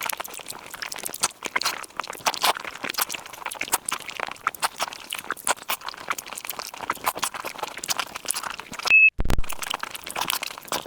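Close-miked eating: a dense run of crunchy chewing and mouth clicks, with a brief cut in the sound about nine seconds in.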